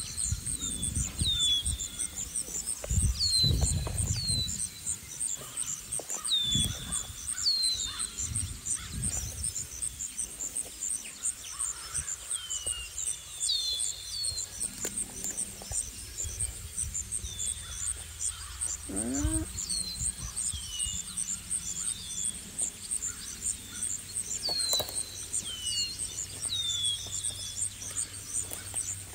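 Small birds calling outdoors: short high chirps that each fall slightly in pitch, scattered irregularly, over a continuous very high, fast-pulsing trill. Low rustling bumps of footsteps through grass and brush come and go in the first half, loudest about three to four seconds in.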